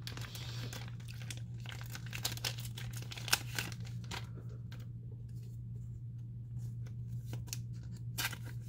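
Thin plastic card sleeves and a plastic bag crinkling and crackling as a new sleeve is pulled out and a trading card is slid into it. The crackles are thickest in the first few seconds and again near the end, over a steady low hum.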